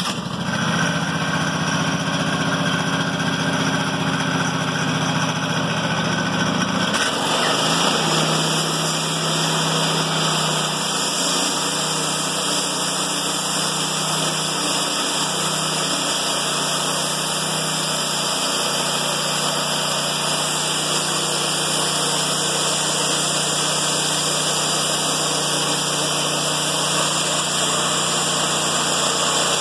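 Portable sawmill running steadily through an Italian cypress log. About seven seconds in, a broad hiss joins the engine, as when the blade begins cutting the wood.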